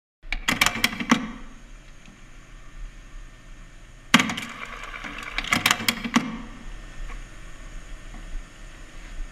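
Jukebox record-changer mechanism clicking and clunking as it selects and loads a record: a rapid run of clicks and knocks in the first second, another run at about four to six seconds in, over a low steady hum.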